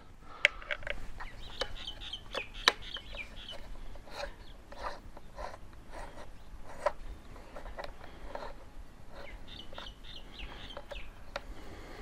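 A hex key undoing motorcycle headlight bracket bolts: scattered small metallic clicks and taps. A bird chirps in two short runs in the background.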